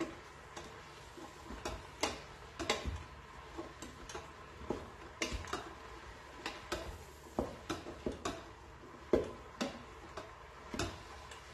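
Wooden spatula stirring chopped cauliflower and vegetables in a stainless steel Instant Pot insert, knocking against the pot's side at irregular intervals, roughly once or twice a second.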